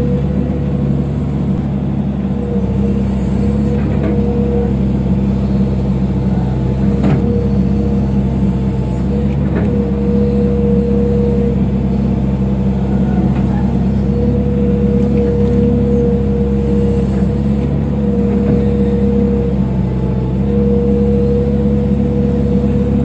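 Excavator's diesel engine running steadily under work, a deep hum with a steady whine over it that dips briefly now and then. Two faint knocks come about seven and nine and a half seconds in.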